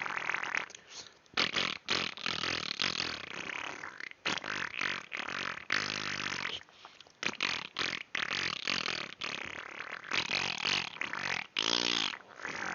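Mouth farts: a person blowing raspberries through the lips in a rapid run of about a dozen bursts of varying length. Most are breathy, and a few have a low buzzing pitch.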